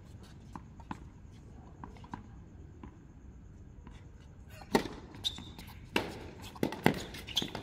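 Sharp knocks of a hard object striking, faint and scattered at first, then a quick run of about seven louder ones from just past halfway, some with a short ringing tone.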